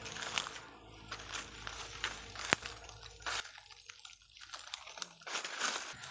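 Footsteps crunching and crackling through dry bamboo leaf litter, irregular crackles with one sharp click about two and a half seconds in.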